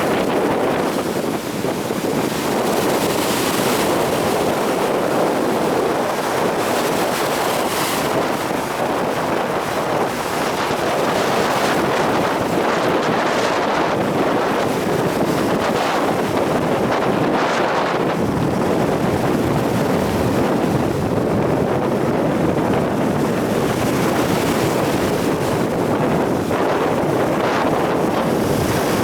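Storm surf on the Sea of Azov breaking on the shore: a loud, steady rush of waves with hissing surges every few seconds, and wind buffeting the microphone.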